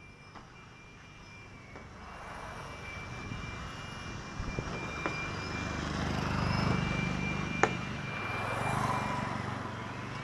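An engine passing by: a low hum that grows louder over several seconds, is loudest about two-thirds of the way through, then fades.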